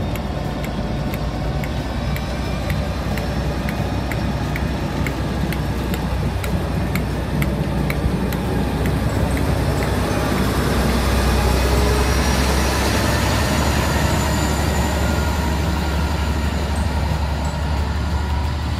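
West Coast Railways Class 57 diesel locomotive running with its EMD two-stroke V12 engine as the train moves past, a steady low engine drone that grows loudest about eleven to fourteen seconds in. A regular light clicking runs through the first half.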